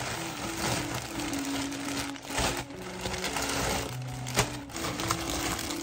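Packaging rustling and crinkling in dense, irregular crackles as a parcel is opened and its contents handled, over soft background music.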